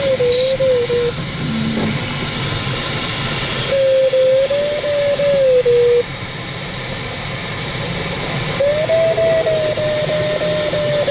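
Glider's electronic variometer sounding a wavering audio tone in three spells, its pitch sliding up and down as the rate of climb and sink changes in turbulent air. Underneath is a steady hiss of air rushing past the cockpit.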